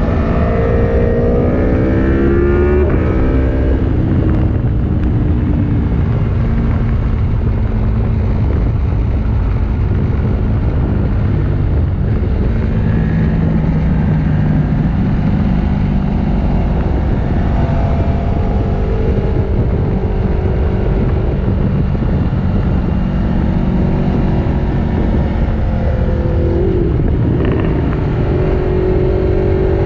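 Naked sport motorcycle engine running hard at track speed over steady wind rush. Its pitch falls over the first few seconds as it slows, then rises and falls again through the gears.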